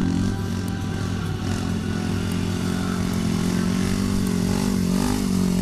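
Yamaha YFZ450 quad's single-cylinder four-stroke engine pulling a long wheelie, running at fairly steady revs with small rises and dips in pitch as the throttle is worked.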